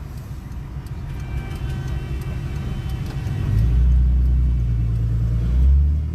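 Vehicle engine running on the road, with a low hum that gets much louder about three and a half seconds in as it pulls harder, then eases near the end.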